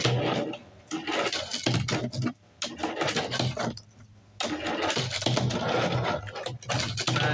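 Tech Deck fingerboard wheels rolling and scraping over a tabletop and a rail, a rough rumble in bursts broken by short pauses about two and a half and four seconds in.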